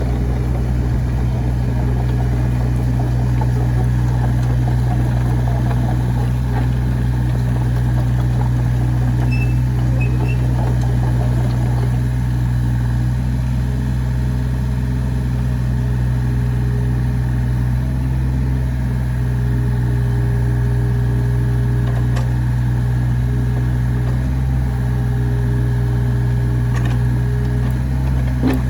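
Diesel engine of a Komatsu PC35MR-3 zero-tail mini excavator idling steadily, a constant low hum with no change in speed.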